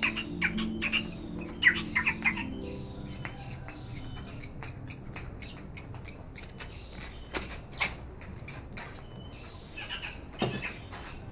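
Caged bird chirping: a rapid run of short, high chirps, about three a second, that stops about two-thirds of the way in, followed by a few scattered chirps. Soft background music with low held notes fades out in the first couple of seconds.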